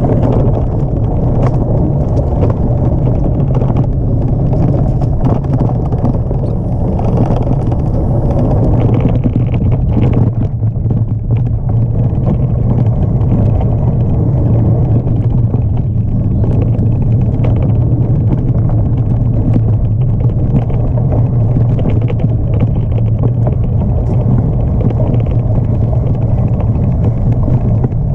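A mountain bike ridden fast on a dirt trail, heard from a camera mounted on its handlebar: a steady low rumble of tyres and wind, with frequent short rattles and knocks as the bike goes over bumps.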